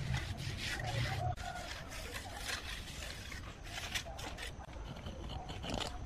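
Irregular scraping and rubbing of a steel mason's trowel and hand over wet cement mortar and brick, in short strokes.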